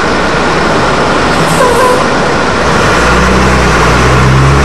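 Renault trolleybus drawing up close over constant street noise. About three seconds in, a steady low hum sets in and grows stronger.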